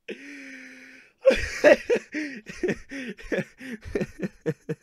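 A man laughing hard into a close microphone: a held, strained note for about a second, then a rapid run of "ha" bursts, about four a second, each dropping in pitch and getting shorter toward the end.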